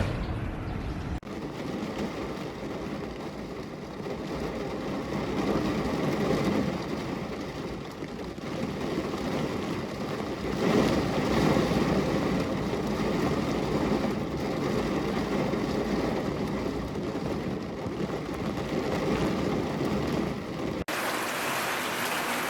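Steady rushing water noise that swells twice, cut off abruptly about a second in and again near the end as a different water recording takes over.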